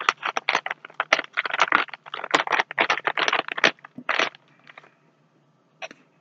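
Crinkly plastic snack bag of Herr's cheese curls rustling and crackling in quick bursts as it is pulled open, with one more loud rustle about four seconds in as a hand reaches into it.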